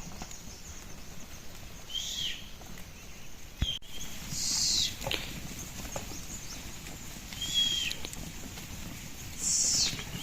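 A bird calling repeatedly in short, high calls that fall in pitch, about every two to three seconds, over a steady outdoor background, with one sharp click in the middle.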